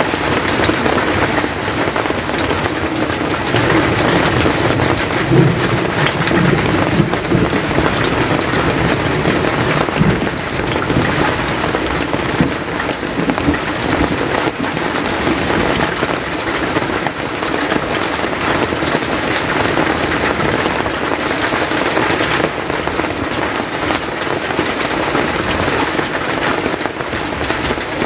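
Steady rain falling on a forest hut and on the wet, puddled ground around it.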